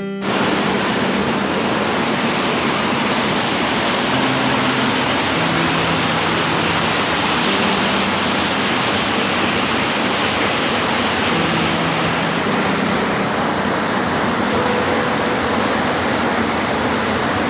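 Steady, heavy rainfall, a dense continuous hiss, with a faint low hum underneath. The sound drops out for a split second right at the start.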